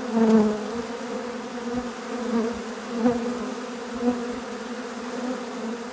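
Buzzing of a dense crowd of honeybees in a feeding frenzy: a steady hum with a few louder swells as single bees pass close.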